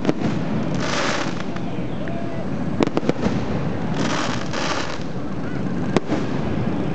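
Aerial fireworks display: sharp bangs around three seconds in and again at about six seconds, with spells of dense crackling between them, over the hubbub of a crowd.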